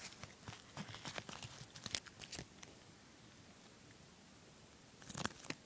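Faint rustling and clicking of a duct tape wallet being handled by fingers as a pocket is opened. There are scattered ticks over the first two and a half seconds, a short cluster of rustles about five seconds in, and quiet between.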